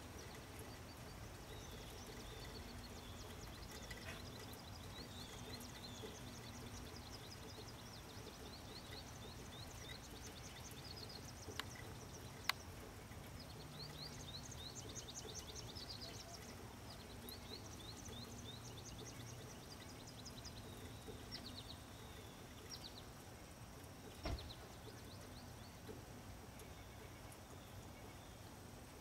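Faint birds chirping and trilling in quick repeated phrases over a low steady rumble, with a sharp click about halfway and another near the end.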